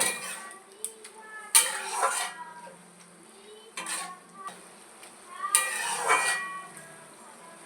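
A spatula stirring and scraping Malabar spinach curry around a kadai, in four strokes about two seconds apart.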